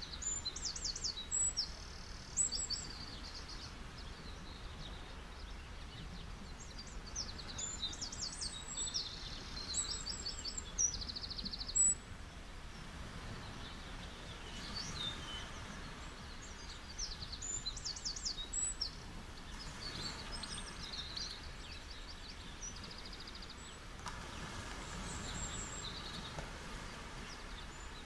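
Small songbirds chirping and giving quick high trills again and again, over a steady rush of ocean surf.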